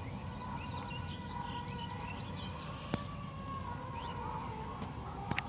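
Outdoor countryside ambience: a steady background hiss with short bird chirps scattered through it. There is a sharp click about halfway through and two more close together near the end.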